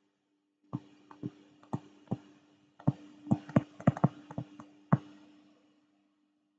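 Digital pen tapping and clicking on a tablet screen while handwriting a word: a dozen or so short, sharp taps, coming faster about halfway through.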